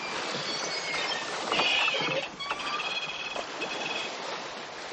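Aboard a wooden sailing brig under way: a steady rush of wind and water with many short, high-pitched squeaks and creaks from the rigging, loudest about a second and a half in.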